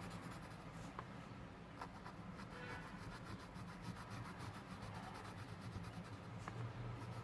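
Faint scratching of a graphite pencil shading on paper, with a low steady hum beneath.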